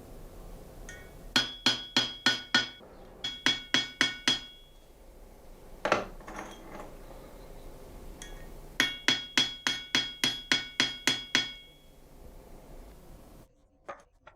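Hand hammer striking steel in quick runs of blows, each blow leaving a bright metallic ring: a run of five, another five, a single blow, then about ten in a row.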